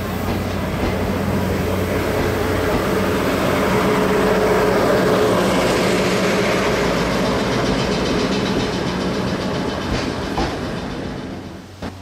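A train passing on the line, its rolling noise building to a peak about four to five seconds in and then fading, over a steady low hum. The sound cuts off suddenly near the end.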